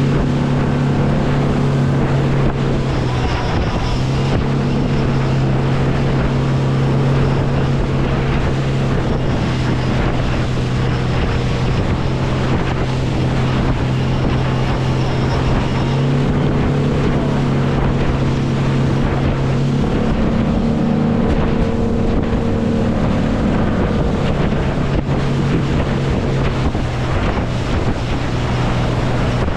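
Chase RIB's engine running at speed across open water, a steady hum whose pitch shifts a little about two-thirds of the way through, with wind buffeting the microphone and water rushing past the hull.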